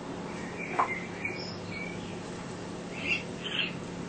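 Birds chirping, a few short calls, over a steady low hum.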